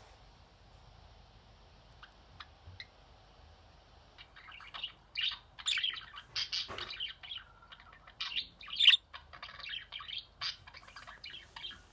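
Budgerigars chirping in quick, closely spaced high calls that start about four seconds in, after a few faint clicks.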